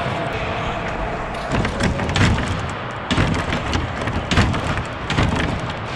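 Sharp knocks and clicks of a hockey penalty box's metal-framed glass door and latch being handled, over a steady hum.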